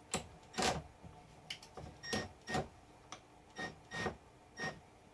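A series of light metallic clinks and taps, about eight spread over a few seconds, several ringing briefly: small steel parallels and an aluminum blank being set down in a milling-machine vise.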